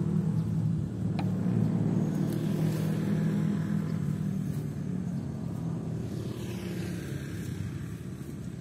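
A motor engine humming steadily, slowly fading over the few seconds as if moving away.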